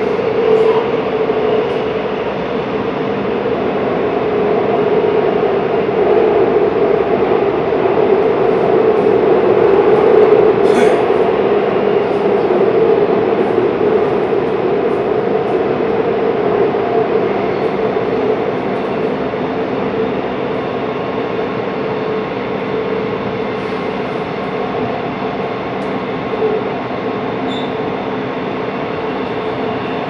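Shinbundang Line electric train running at speed through a tunnel, heard from inside the car: a continuous rumbling drone of wheels on rail and tunnel noise that swells about ten seconds in and then eases a little.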